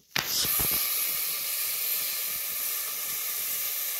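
Lambari frying in hot oil, a steady high sizzle that starts abruptly just after the start, with a few small pops right after it begins.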